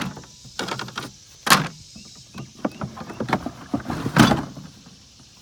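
Irregular knocks, clunks and short scrapes, as of hard objects being handled and moved about, with two louder knocks about a second and a half in and about four seconds in.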